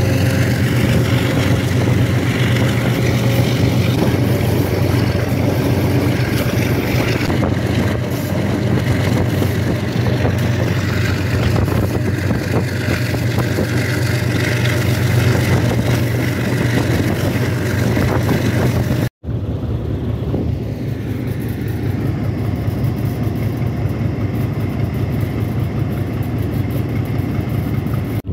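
Diesel locomotives hauling a train at speed, heard from on board: a steady low engine drone under a continuous rattle of the running train. About two-thirds through, the sound cuts out for an instant, then goes on a little duller.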